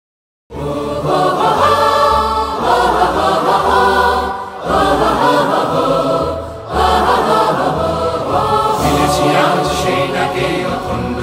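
A group of voices singing together with instrumental backing and a steady low bass, starting suddenly about half a second in after silence, in phrases of about two seconds.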